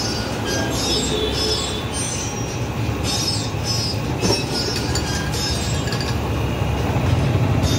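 Metal spoon clinking and scraping against a glass while a sarbath is stirred, giving short high ringing clinks about twice a second, over a steady low rumble.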